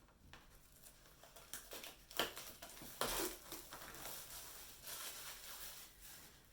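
Packaging wrap on a boxed DVD set being torn open and handled: faint crinkling and rustling with a few sharp snaps, the clearest about two seconds in.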